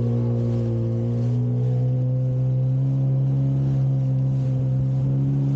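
Jet ski engine running steadily at speed, its note climbing slightly partway through.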